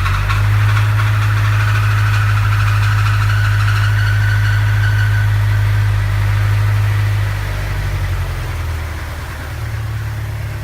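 Mazdaspeed3's 2.3-litre turbocharged four-cylinder running unevenly: its idle steps up at the start, holds, then drops back about seven seconds in and settles. The engine has a broken rod bearing.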